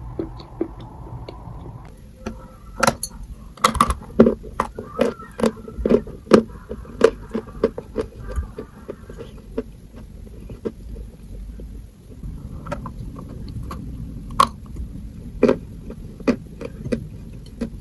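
Chalk being bitten and chewed close to the microphone: a quick run of sharp crunches for several seconds, then slower, scattered crunches.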